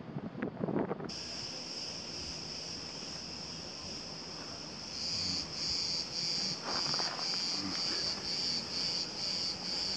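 Insects shrilling: a steady high buzz starts about a second in, and from about halfway it pulses at roughly two beats a second.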